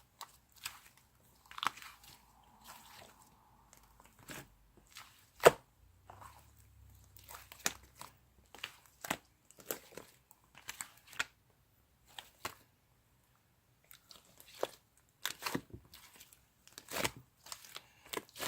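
Slime being squeezed and stretched by hand, giving irregular sharp pops and crackles with short quiet gaps between them.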